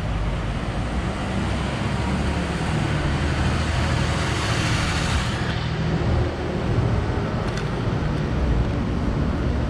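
Street traffic: a vehicle passes, its tyre hiss swelling and then dropping away about five seconds in, over a steady low rumble.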